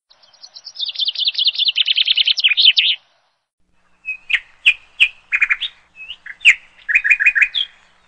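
Budgerigar chirping in a fast, high warbling trill for about three seconds. After a short pause comes a run of short, sharp bird chirps and clicks.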